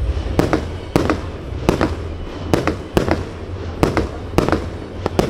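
Fireworks display: shells bursting in a quick series of sharp bangs, about two to three a second, each with a short echo, over a steady low rumble.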